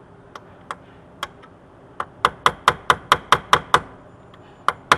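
Chisel being tapped against the head of a steering-column lock housing's shear bolt to drive it counterclockwise and break it free: a few light taps, then a quick run of about nine sharp metallic strikes, roughly five a second, and two more near the end.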